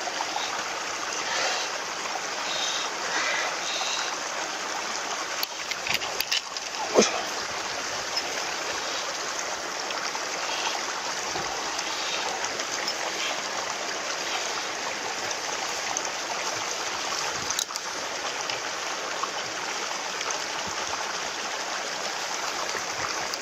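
Steady rush of flowing water, with a few brief sharp noises about six and seven seconds in and again near the end.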